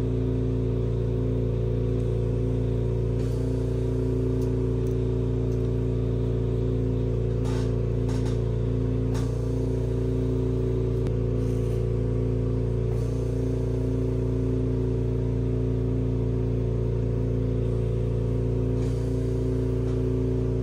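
A Smith Little Torch micro torch flame burning steadily with a constant hiss and hum while it heats a brass saxophone key guard for silver soldering.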